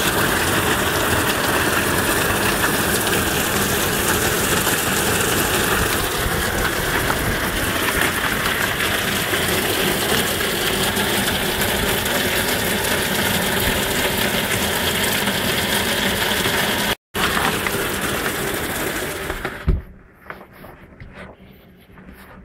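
Torrential rain falling hard and steadily, with water pouring off an overflowing roof gutter. Near the end there is a single knock, after which the rain sound is suddenly muffled.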